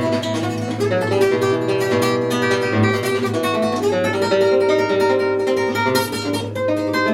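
Acoustic guitar music: a steady stream of plucked notes over a sustained low note.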